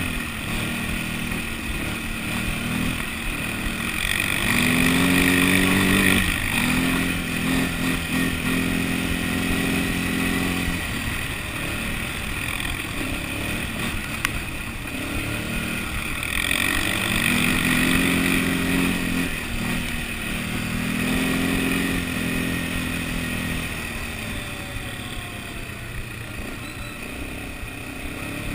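ATV (quad bike) engine running while being ridden, heard up close from the machine. Its pitch rises and falls several times as the throttle is opened and eased off.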